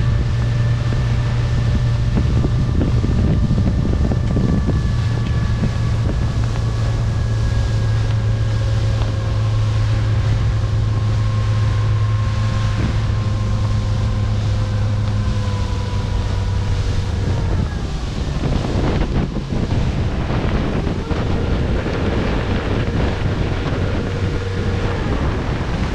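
Motorboat engine running steadily under wind buffeting the microphone. The engine's pitch sinks slowly, and about two-thirds of the way through it drops back, leaving mostly wind noise.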